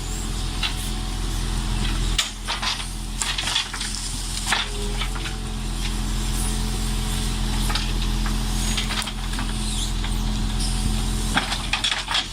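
Forestry loader crane's engine running steadily, with sharp knocks and clunks of logs and the grapple being handled: a cluster from about two seconds in and more near the end.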